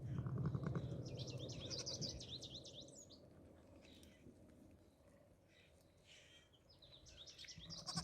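Faint birdsong of rapid high twittering notes, about one to three seconds in and again near the end. In the first second or so, a low pulsing rumble, the kind of soft low nicker an Icelandic ewe makes to her newborn lamb.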